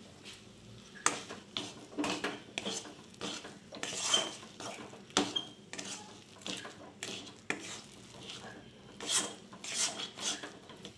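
Metal spatula stirring and scraping thick mashed taro leaves around a kadai, with repeated irregular scrapes and clinks of metal on metal starting about a second in.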